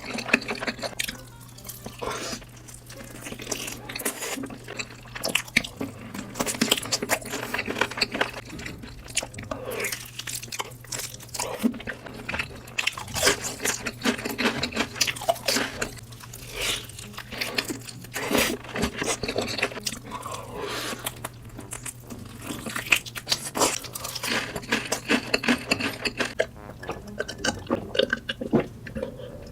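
Close-miked chewing with many sharp, crisp crunches, the mouth sounds of someone eating big bites of food.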